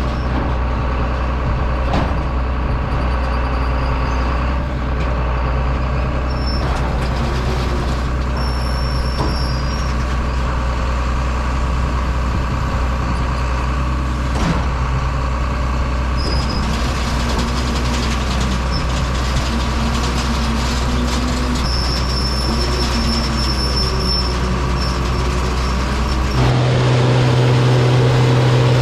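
John Deere 7460 cotton stripper running while harvesting: a steady, loud machine drone with a strong low hum, a steady whine and wavering lower tones. About 26 seconds in, the sound changes abruptly to a different steady hum.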